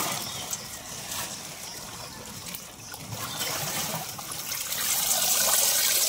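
Water pouring and splashing back into a shallow tank from a metal tray of snakehead fingerlings as it is scooped and lifted, getting louder over the last couple of seconds.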